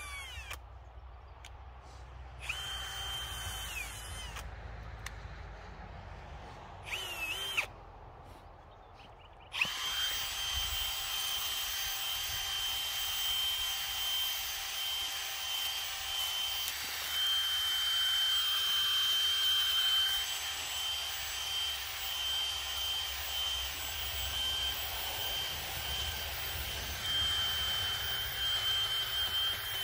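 Stihl MS880 two-stroke chainsaw blipped up to high revs in short bursts, falling back to idle between them. From about ten seconds in it is held steady at full throttle.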